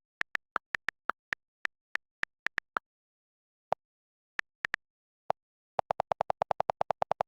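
Short electronic ticks over dead silence: a run of higher-pitched clicks about three a second, a few scattered ones, then a fast run of lower-pitched ticks, about eight a second, near the end.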